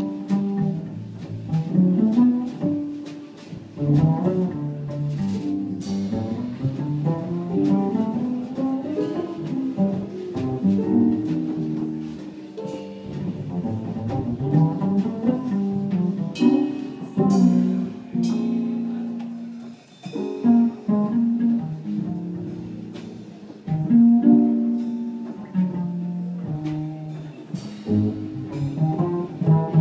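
Live jazz in which a double bass plays a busy solo line of quick notes with repeated stepwise rising runs, and a few sharp drum or cymbal strokes come in around the middle.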